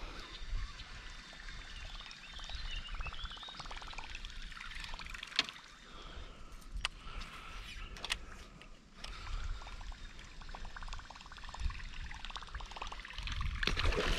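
Soft water gurgling and trickling as a topwater lure is worked across calm water beside a kayak, with a few sharp clicks. Near the end a louder splash as a bass strikes the lure close to the kayak.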